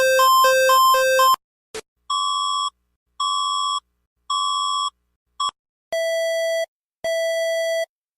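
Electronic emergency-alert tones. A fast high-low two-tone alternation cuts off about a second and a half in. Then come three evenly spaced short high beeps and a brief blip, and from about six seconds in, longer, lower beeps repeating about once a second.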